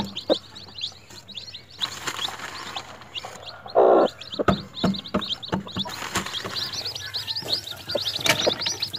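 Newly hatched chicks peeping continuously in quick, high, falling chirps, busier in the second half, while the broody hen pecks cracked corn off wooden floorboards in sharp taps. A brief louder, lower sound comes about four seconds in.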